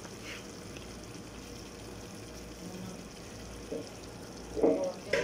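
Steady low hiss of a tomato-based chicken stew simmering in a steel pot on a gas stove, with a brief louder knock near the end as fried potato slices are added.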